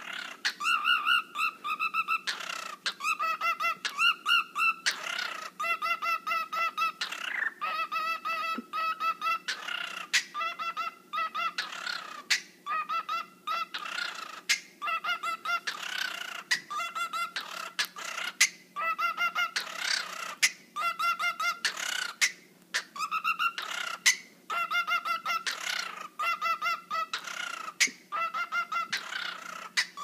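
Cockatiel singing: about one-second runs of fast, pulsing whistles broken every couple of seconds by short harsh screechy bursts. The pattern repeats over and over in a wobbling rhythm likened to dubstep.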